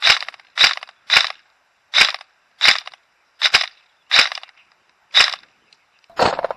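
Airsoft gun shooting repeatedly at close range: about ten sharp cracks at an uneven pace, roughly one every half second to second. The last few shots are fuller and lower.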